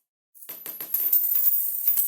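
Coins dropping onto a hard floor and scattering: a quick run of clinks with bright metallic ringing, starting about half a second in, with one last sharp clink near the end.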